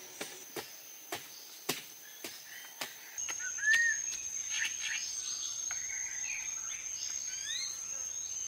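A hoe chopping into soil in steady strokes, about two a second, six strikes in all. They stop after about three seconds, and a steady high insect drone with scattered bird chirps takes over.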